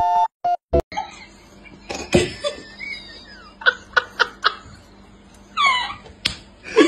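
A short synth music tune cuts off about a second in; then a person laughs and giggles in short bursts, with a couple of sharp knocks in between.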